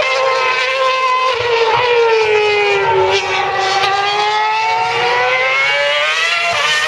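A 2012 Formula One car's 2.4-litre V8 engine running at very high revs. Its pitch sinks smoothly to a low point about three seconds in, then climbs again, with a quick jump near the end.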